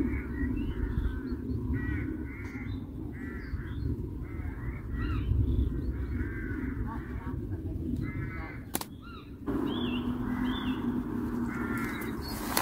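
Crows cawing over and over, short harsh calls about once a second, over a low rumbling background. A sharp click comes near the nine-second mark, and a low steady hum starts shortly after.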